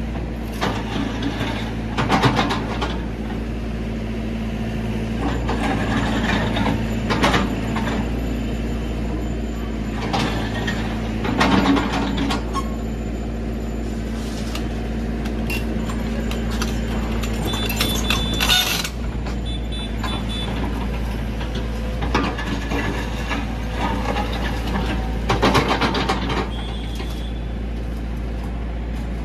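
Compact tracked excavator's diesel engine running steadily, with louder bursts every few seconds as the steel bucket digs and scrapes through soil. A short sharp hiss about 18 seconds in.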